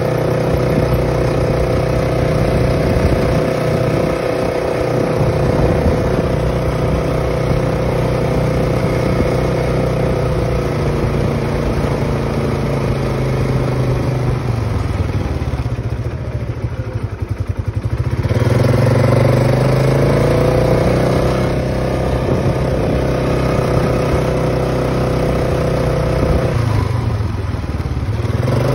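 Polaris ATV engine running under way. About halfway through it slows to a low, pulsing idle for a couple of seconds, then rises in pitch as it accelerates away. It eases off and picks up again once more near the end.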